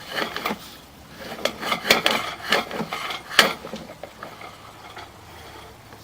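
Sewer inspection camera's push cable being worked through the line: irregular clicks and knocks for about three and a half seconds, then only a low steady hum.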